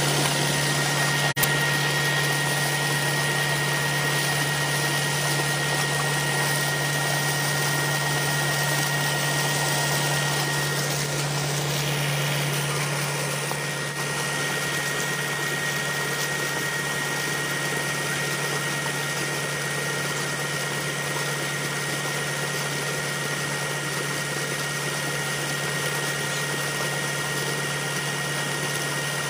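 Tractor engine running steadily, driving a tube well's turbine pump, over the continuous rush of sandy water gushing from the discharge pipe and splashing into the pit. A single sharp click about a second in.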